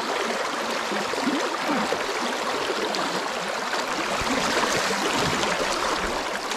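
Steady rush of water over a shallow, rocky creek riffle, with a few low thumps about four to five seconds in.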